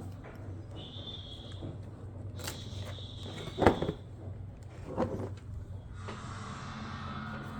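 Objects being handled, with faint short squeaks, a sharp knock about three and a half seconds in and a softer knock about five seconds in.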